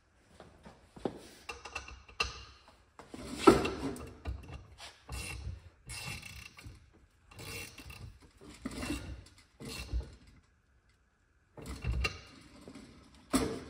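Hand tools and metal engine parts being handled and worked: a string of irregular clanks, knocks and rattles with short pauses between them, the loudest about three and a half seconds in.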